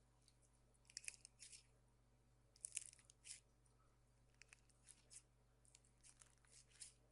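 Slime being squeezed and pressed, giving faint crunchy, crackling squishes in several short clusters.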